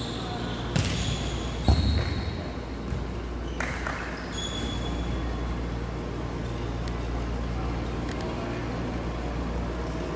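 A volleyball being struck in a rally, with two sharp impacts about a second apart, the second the loudest, and another a couple of seconds later. A few short high squeaks sound in between, over a steady low hum of the sports hall.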